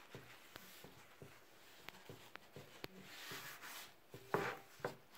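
A cloth rubbing mineral oil into a wooden cutting board: faint swishing strokes with a few soft ticks, the loudest swipes about four seconds in.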